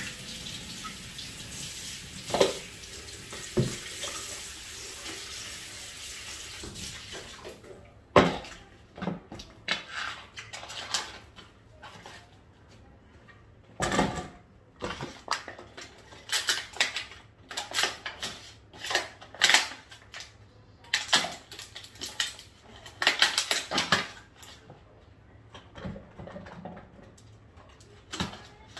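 Kitchen tap running into a sink, shutting off about seven seconds in, then a string of clinks and knocks as dishes and utensils are handled in the sink.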